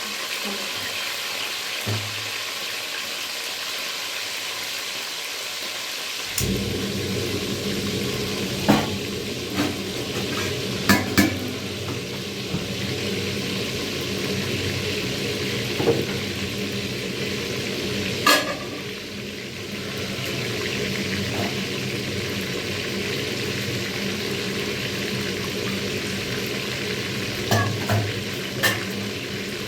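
Food frying in hot oil in a pot, with a steady sizzle and a few sharp clicks of a utensil against the pot as it is stirred. A low steady hum comes in about six seconds in.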